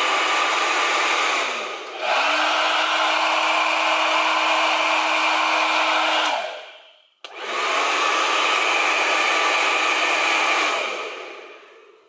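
Two Parlux hair dryers, a new Alyon and an older model, run in turn. One winds down about two seconds in. The other starts, runs steadily with a slightly higher motor hum and winds down about six seconds in. A switch clicks, the first starts again and winds down near the end.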